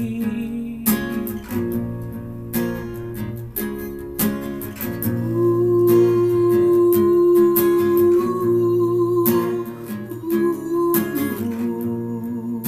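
Acoustic guitar strummed in a steady rhythm, with one long held note ringing over the chords for about four seconds in the middle.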